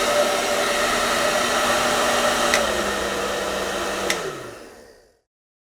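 Hair dryer blowing, a steady rush of air over the hum of its motor. A click about two and a half seconds in drops it to a lower speed, and a second click about four seconds in switches it off, the motor winding down as the sound fades away.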